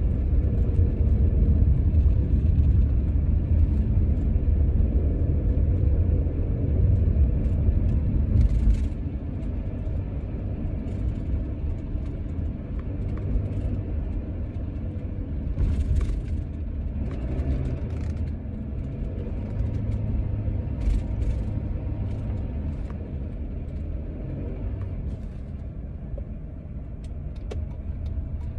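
Steady low rumble of a moving car heard from inside the cabin. It drops somewhat in loudness about nine seconds in, with a few faint clicks now and then.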